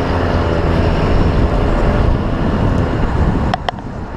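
Wind noise on an exterior-mounted camera on a moving diesel pickup truck, over the low drone of its engine and tyre noise. Near the end the noise briefly dips, with a couple of short sharp clicks.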